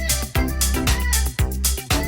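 Upbeat dance-pop background music with a steady four-on-the-floor kick drum, a sustained bass line and bright cymbals.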